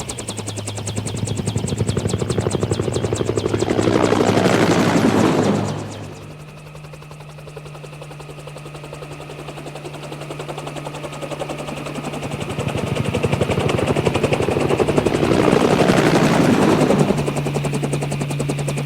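An engine running with a fast, even pulsing beat over a low hum that shifts in pitch a few times, swelling louder twice, about four to six seconds in and again near the end.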